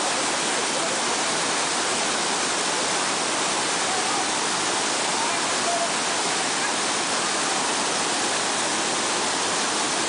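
A waterfall in flash flood: a steady, loud rush of floodwater pouring over the falls.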